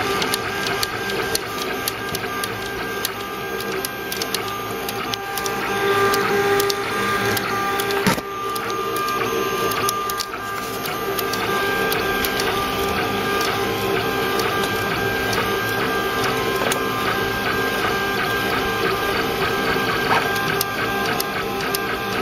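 Ultimaker 3D printer running a print: its stepper motors whine in several steady tones that shift as the print head changes moves, with many small ticks.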